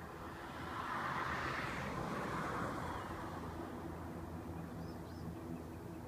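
A passing vehicle's noise swells about a second in and fades away by about four seconds, over a faint steady low hum. Faint bird chirps come near the end.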